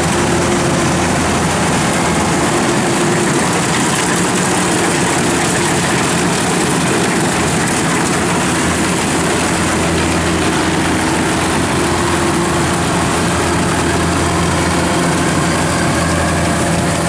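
Kubota DC-93 rice combine harvester running steadily while it cuts standing rice: a constant engine drone mixed with the noise of its cutting and threshing machinery, holding one even pitch and level.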